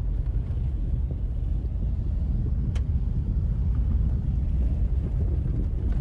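Steady low rumble of a moving vehicle heard from inside the cab, with engine and road noise; it cuts off abruptly at the end.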